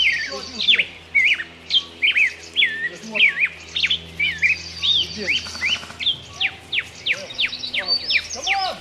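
Birds chirping: a busy run of short, quick sweeping calls, several a second.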